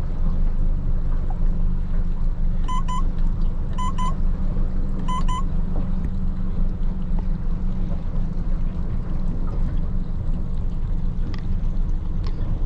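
Honda BF150A 150 hp outboard running steadily at trolling speed, holding about 600 RPM in troll mode. Three quick double beeps from the helm's trolling control come about three, four and five seconds in.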